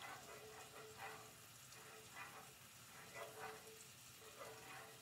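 A utensil scrapes faintly in a nonstick skillet, stirring melting butter and minced garlic with a stroke about once a second, over a low sizzle.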